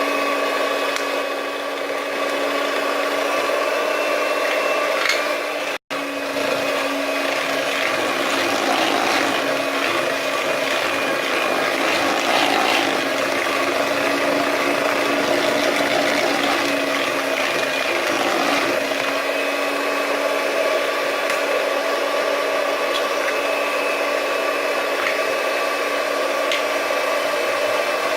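Electric hand mixer running steadily, beating eggs into creamed butter and sugar for a cake batter. It gives a constant motor whine with light ticking, and drops out for an instant about six seconds in.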